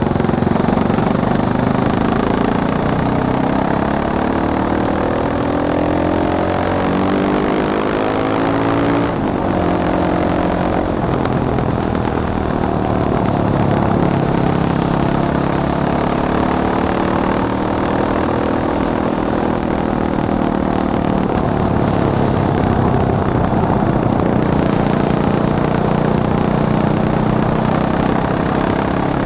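Fantic Caballero 500 Flat Track's single-cylinder four-stroke engine running and being revved, its pitch rising and falling again and again, with a brief drop about nine seconds in.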